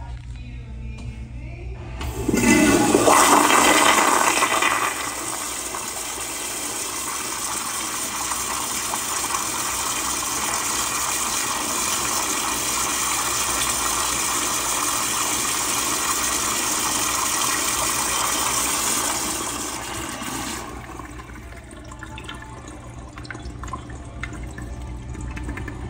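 Toilet flushing: a loud rush of water starts about two seconds in, eases after a few seconds into a steady rush of water running into the bowl, and dies down to a quieter wash about twenty seconds in.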